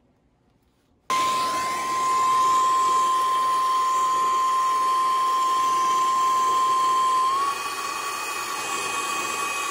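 Brazing torch lit about a second in, its flame then running with a steady rush and a high steady whistle while it heats a copper refrigerant tube joint for brazing. About three-quarters through, the whistle steps up slightly and the sound gets a little quieter.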